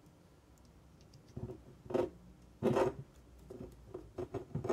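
Plastic LEGO pieces being handled and pressed onto a model: scattered light clicks and a few short scraping rubs, starting about a second in.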